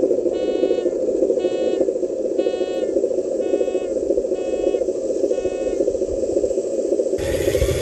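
Reversing beeps from a radio-controlled King Hauler dump truck, six beeps about one a second, over the truck's steady running drone as it backs through mud. The beeps stop about six seconds in, and a little after seven seconds a louder, harsher mechanical whir sets in.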